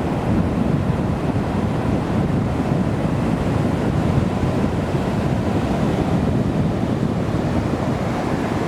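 Atlantic surf washing steadily onto the beach, with wind rumbling on the microphone.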